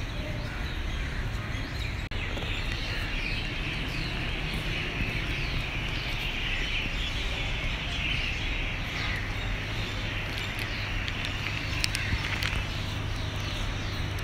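Many birds chirping together in a dense, continuous chorus, over a steady low rumble.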